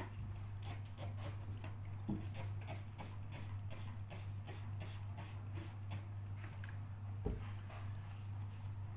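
Light irregular clicks and ticks from handling a handheld steam cleaner's nozzle and cloth cover, over a steady low hum. There are two slightly louder knocks, about two and seven seconds in.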